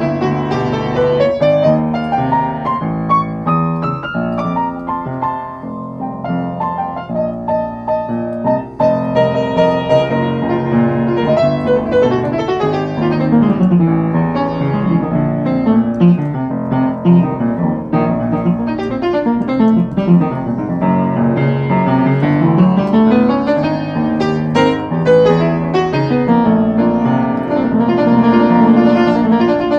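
Piano music, with quick runs of notes sweeping up and down.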